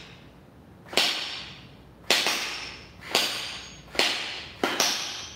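P90 gel blaster firing single shots in semi-auto mode, the gel balls smacking into a steel target plate that rings briefly after each hit. About six shots, roughly a second apart, the last two in quick succession.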